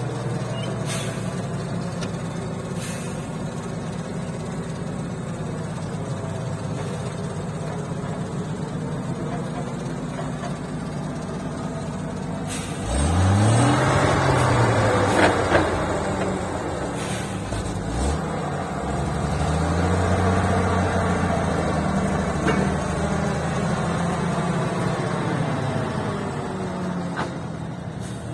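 ZIL-157 truck engine running. About halfway through it revs up sharply and drops back, then rises again and holds higher for several seconds before easing off near the end.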